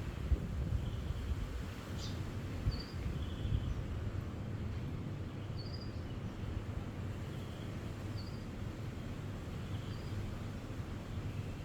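Wind rumbling and buffeting steadily in low gusts, with a few short, high bird chirps over it.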